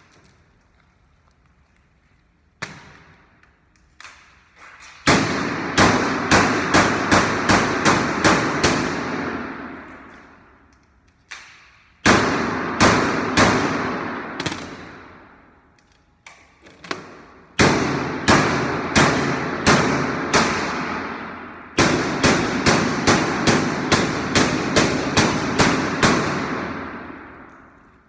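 Runs of sharp strikes on a resonant object, about two a second, each run building a ringing wash that dies away over a few seconds once the striking stops; there are four such runs.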